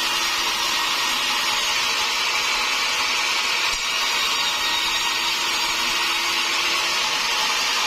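Sawmill saw running steadily as it saws timber into rafter stock: a continuous loud hiss with a steady hum beneath it.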